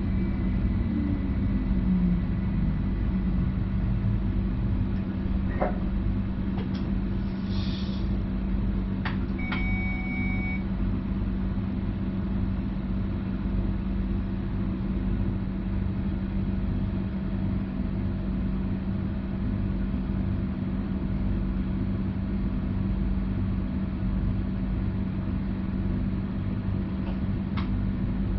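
Cab interior of a Stadler FLIRT Sm5 electric commuter train: steady low rumble and hum, with a falling electric whine in the first few seconds. A few short clicks and a brief electronic beep come about ten seconds in.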